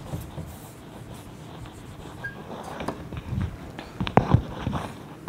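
Dry-erase marker writing on a whiteboard: faint, irregular scratching strokes, with a few sharper, louder squeaks and taps about four seconds in.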